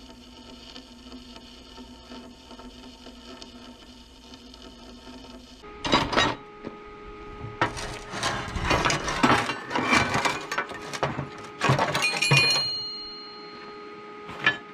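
Welding arc crackling steadily on steel for about six seconds, then a stiff wire brush scrubbing the flux slag off the fresh weld bead in rough, uneven strokes, with metallic clinks; a steel plate rings briefly about two-thirds of the way through.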